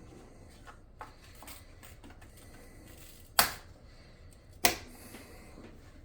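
Hands working on the parts inside an HP Z4 workstation case: a few light clicks, then two sharp knocks a little over a second apart.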